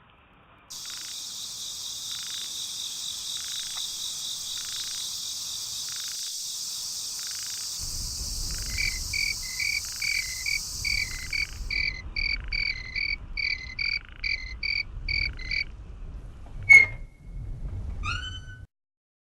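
Insects buzzing steadily with a frog calling about once a second. About eight seconds in, a low rumble comes in and the calls turn faster, about two a second. Near the end there is one sharp loud click and a few short chirps, then the sound cuts off suddenly.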